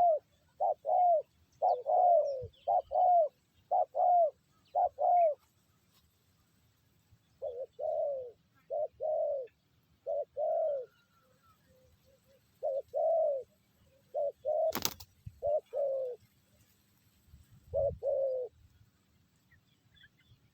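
Spotted dove cooing: short falling coos in quick repeated phrases, with a pause of about two seconds about five seconds in. A single sharp click about fifteen seconds in.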